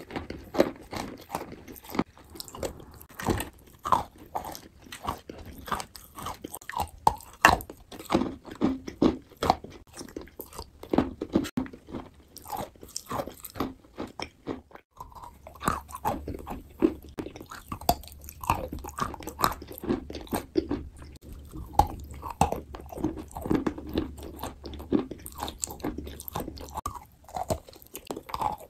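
Close-up mouth sounds of biting, crunching and wet chewing on a soft, crumbly, pasty substance: many quick irregular smacks and crackles, with a brief pause about halfway through.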